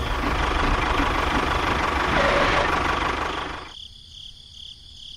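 A motorised toy runs with a loud, steady mechanical rattle for about three and a half seconds, then cuts off sharply. What is left is a faint insect chirping, pulsing about twice a second.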